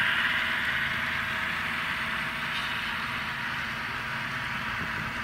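GE Tier 4 GEVO diesel engine sound played by the ESU LokSound decoders of N scale ScaleTrains ET44AC model locomotives, a steady hissy engine drone from their small speakers, fading slowly as the train moves away.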